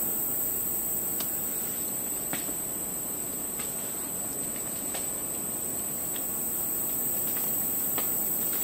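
Steady, very high-pitched drone of a tropical insect chorus, with a few faint scattered clicks and snaps.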